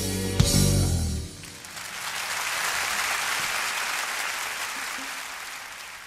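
A live jazz guitar band finishes a number with a final sharp hit, the music stopping about a second in, and the concert audience breaks into applause that slowly fades. It is heard off an FM radio broadcast recorded on cassette.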